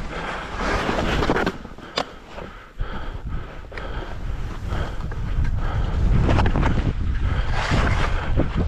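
Wind buffeting the microphone during a ski run, with the hiss and scrape of skis on snow rising and falling from turn to turn, and one sharp click about two seconds in.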